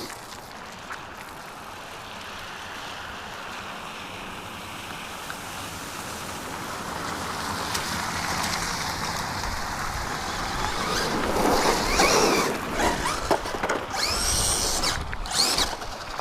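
Arrma radio-controlled car driving off-road, its noise building steadily louder, then rough bursts with brief rising and falling motor whines near the end as it is throttled.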